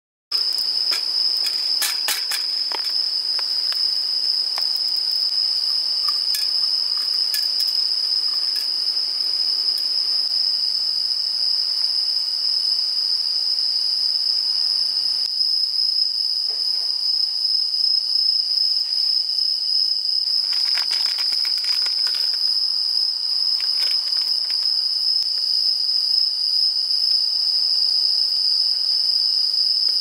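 Crickets chirring in one steady, unbroken high trill, with a few scattered light clicks and cracks.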